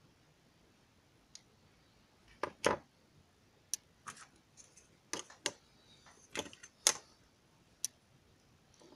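Irregular sharp plastic clicks and knocks as a plastic bicycle phone clip mount is handled and set down on a table and a plastic ruler is laid beside it.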